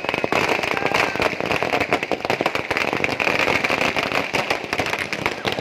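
A string of firecrackers going off on the road in a rapid, unbroken run of sharp bangs.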